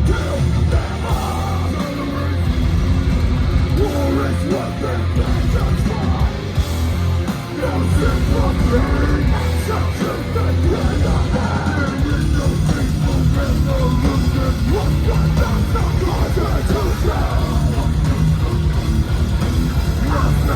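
Live heavy hardcore band playing loud, distorted guitars, bass and fast drums, with a vocalist yelling over the music.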